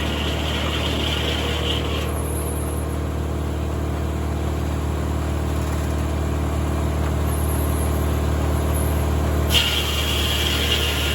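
Tractor engine running steadily to power a circular sawmill, with a higher whine over it for the first two seconds that drops away and comes back near the end.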